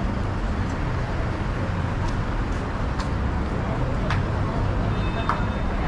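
City street traffic at an intersection: cars running past with a steady low rumble, and faint voices of passers-by.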